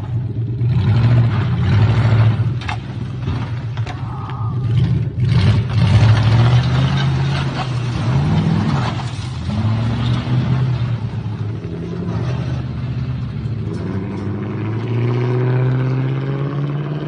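Nissan sedan's engine and exhaust revving up and down again and again, each rev rising and falling. Near the end it climbs in one long, steadily rising rev.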